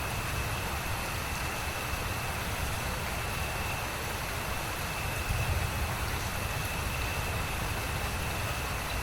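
Steady rain noise with a deep low rumble beneath it and a thin, steady high-pitched tone above.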